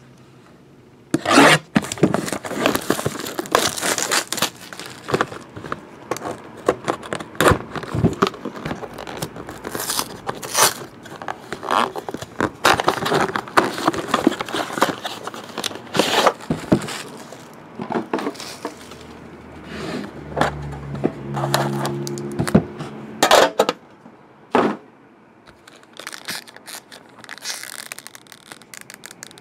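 Plastic shrink wrap being torn and crinkled off a cardboard trading-card box, with scraping and rustling as the box is opened and a foil-wrapped pack is handled. A short low squeak comes about twenty seconds in.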